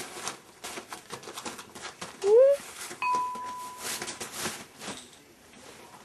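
Border Collie puppy chewing and playing with a toy in a wire pen: a run of small clicks, rattles and scratches. About two seconds in comes a short rising squeak, the loudest sound, and a second later a brief steady tone.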